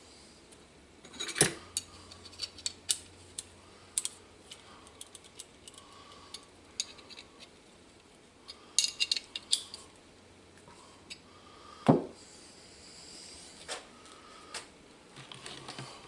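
Metal hand tools and brake tubing fittings clicking and clinking while a brake line is being double flared. Scattered sharp clicks come with a quick cluster about nine seconds in and a single louder knock about twelve seconds in.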